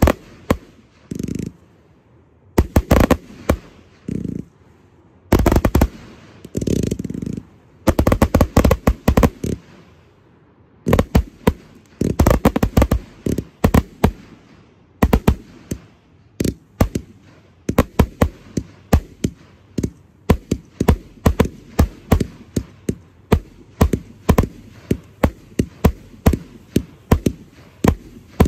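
Aerial fireworks going off: sharp bangs of bursting shells, in loud clusters with a low rumble over the first half, then a fast, even series of about three bangs a second.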